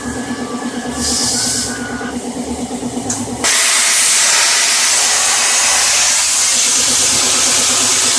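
Pulsing machine hum, then about three and a half seconds in a plasma cutter's torch fires: a sudden, loud, steady hiss of air and arc that holds to the end.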